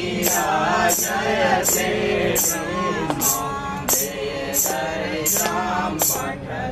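Men and women singing a Hindu aarti hymn together, accompanied by jangling metal percussion struck on a steady beat about every 0.7 seconds.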